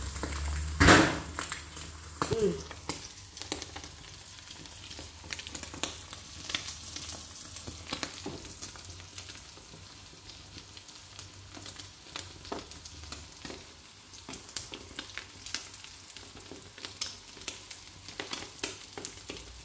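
Eggs frying in a small pan over a gas burner, a steady sizzle with many small pops and crackles. A sharp knock about a second in.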